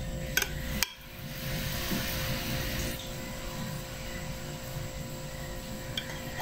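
A metal spoon spreading thick cream in a glass baking dish: two light clicks of the spoon against the glass within the first second, then a soft scraping hiss for about two seconds. A steady low hum runs underneath.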